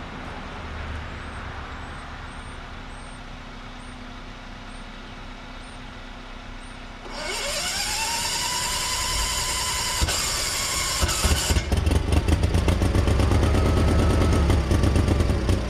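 Case 1816C skid steer's starter and gas engine: about seven seconds in, the starter motor spins up with a rising whine that then holds steady. From about twelve seconds the engine turns over loudly with a fast, rough rhythm.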